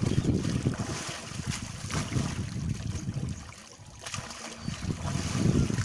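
Gusty wind rumbling on the microphone, with light water splashing from a swimmer diving under and coming back up.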